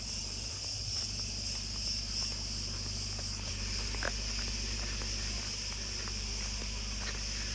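Insects chirring in a steady, high-pitched outdoor chorus, with a low rumble underneath and a few faint clicks, one sharper about four seconds in.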